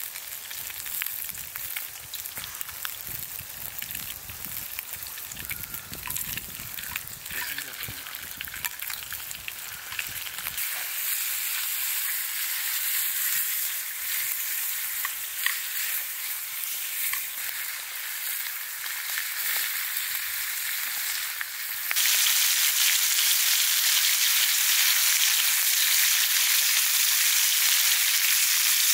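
Bacon frying in a pan with a steady hiss and spatter. The sizzle gets suddenly louder about twenty-two seconds in.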